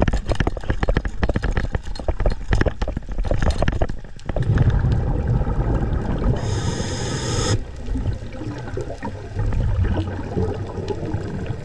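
Underwater audio of a spear shaft, speargun and speared gag grouper being handled: a dense run of clicks and knocks for about four seconds, then a steady low rushing of water as the diver swims. About two thirds of the way through, a short high buzz lasts about a second.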